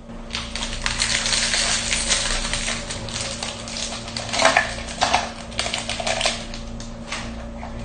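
Crinkling plastic wrapper of an Oreo cookie pack being torn open and handled, a dense run of crackles with a few louder ones a little past the middle.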